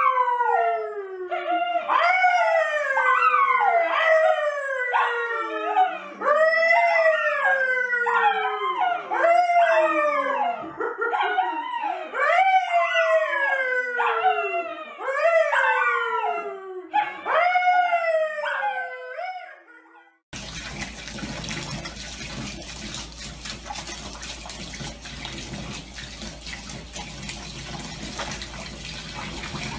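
A brown poodle howls along with a man's howling in long calls that fall in pitch, one after another, for about twenty seconds. Then water runs steadily into a bathtub.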